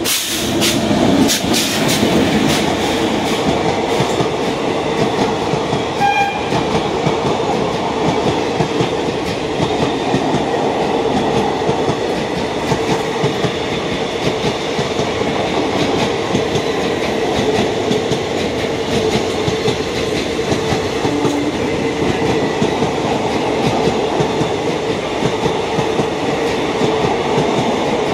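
An Indian Railways express passenger train's coaches passing close by at speed: a steady, loud rush of running noise with wheels clattering over the rail joints.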